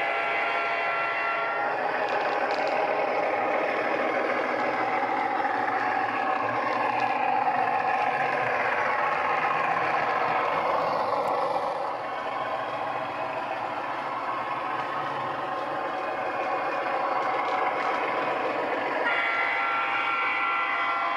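DCC sound decoder in an HO-scale model of an NSWGR 43 class diesel locomotive, playing through two small megabass speakers. The horn sounds for the first two seconds or so and again near the end. In between, the diesel engine sound rises and falls in pitch as the model runs.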